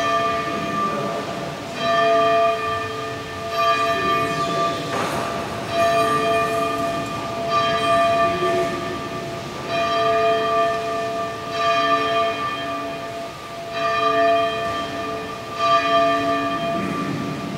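Abbey church bells ringing, a new stroke about every two seconds, each ringing on into the next. The strikes alternate between bells of different pitch.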